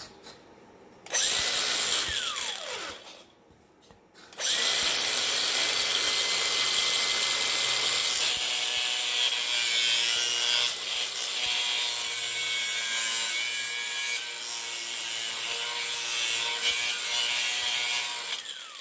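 Angle grinder cutting off the pin that holds a car's inside door grab handle. It runs briefly and winds down, stops, then grinds steadily for about fourteen seconds with a constant motor whine and winds down near the end.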